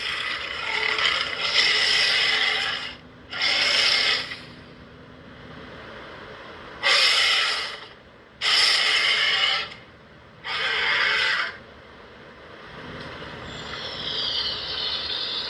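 Giant-monster roar sound effects: one long roar, then four shorter roars of about a second each. A fainter high screech swells near the end.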